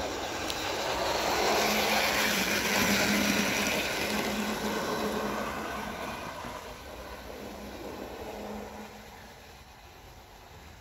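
Model English Electric Type 4 diesel locomotive with twin can motors running along garden track: the motors hum steadily over wheels rattling on the rails. It grows louder as it passes close by, then fades as it runs away.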